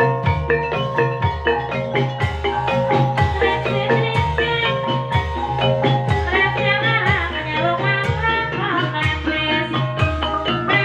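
Javanese gamelan accompaniment for an ebeg horse dance: quick, ringing struck notes from xylophone- and metallophone-type instruments over a deep beat about once a second.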